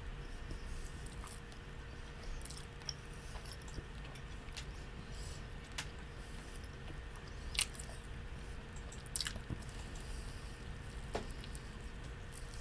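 A person chewing a soft turkey-and-mayo sandwich close to the microphone, with wet mouth clicks and smacks every second or two over a steady low hum.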